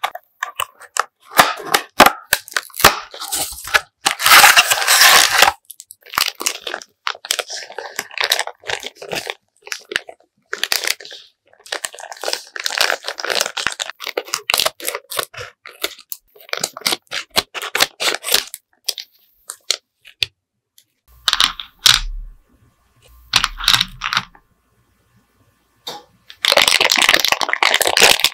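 Candy wrappers being torn open and crinkled, in irregular bursts of rustling and crackling with sharp clicks and short pauses between. A few soft low thumps come about three-quarters of the way through.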